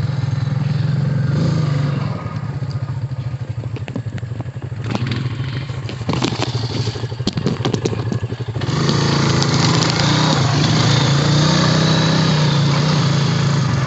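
Honda Rancher ATV engine running at low speed while the quad is turned around, with a run of clicks and clatter in the middle, then the engine gets louder under throttle from about nine seconds in.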